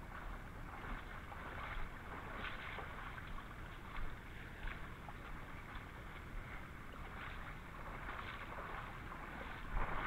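Steps wading and splashing through a shallow creek, water sloshing around the legs at an irregular pace, with a steady low rumble on the body-worn microphone underneath.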